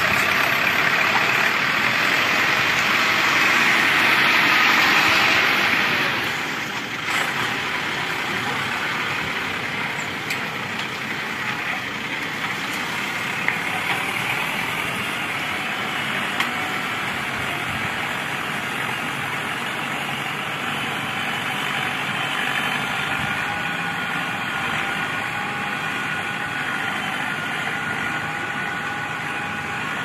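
Universal 640 DTC tractor's diesel engine running steadily under load while it pulls a plough. It is loudest for the first six seconds as it passes close, then quieter as it moves away.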